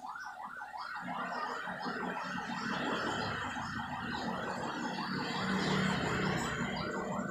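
Ambulance electronic siren in a fast yelp, its pitch rising and falling about three times a second. From about a second in, a rougher, denser layer mixes over the sweep and the sound gets a little louder.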